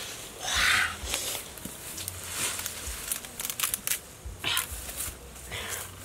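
Leaves and twigs rustling and crackling as a person pushes through leafy shrubs, with many short snaps and clicks. A loud breathy sound comes about half a second in.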